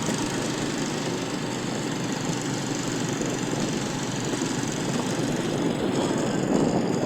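An engine running steadily, a loud, continuous mechanical noise that swells slightly near the end.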